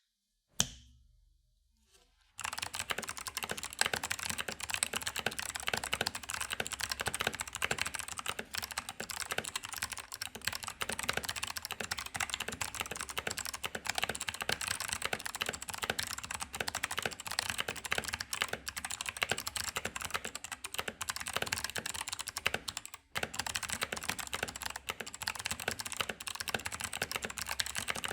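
Fast continuous typing on a 65% mechanical keyboard with clicky Kailh BOX White switches, keys struck on a bare desk without a mat. A single keystroke comes first, then a two-second pause, then a dense run of clicks with one short break near the end.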